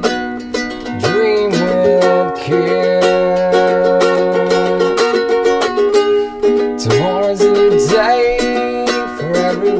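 Background music with a steady beat and a held, wavering melody line.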